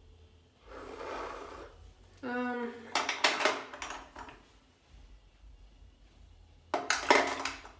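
Plastic lip gloss tubes and other makeup packaging clicking and clinking as they are picked up and handled, in a few short clusters, the loudest near the end.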